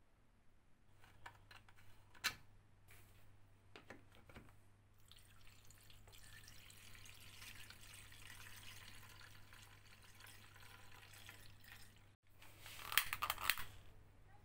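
Kerosene poured through a funnel into a Demon Type 235 stove's fuel tank, a steady trickle lasting about seven seconds after a few clicks of handling. About a second after the pouring stops, a brief scratchy burst as a match is struck to light the burner.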